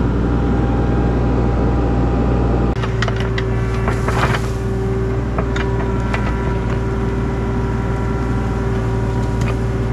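Tracked excavator's diesel engine running steadily, with a steady whine heard after an abrupt change about three seconds in and a few knocks.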